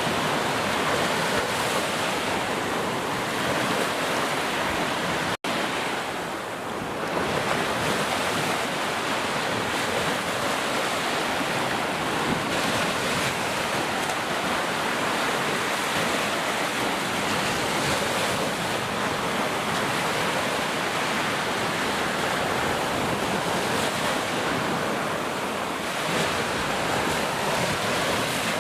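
Heavy rain pouring steadily as a dense, even hiss, cutting out for an instant about five seconds in.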